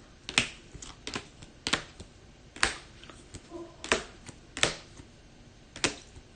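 Trading cards being handled and set down on a table: about seven sharp taps and clicks at uneven intervals.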